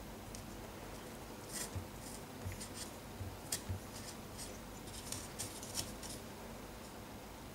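Faint scratchy clicks and scrapes of a small hand drill turned by hand against the timbers of a model trestle bridge, drilling holes for nut-bolt-washer detail castings. The clicks come in scattered clusters from about a second and a half in until about six seconds in.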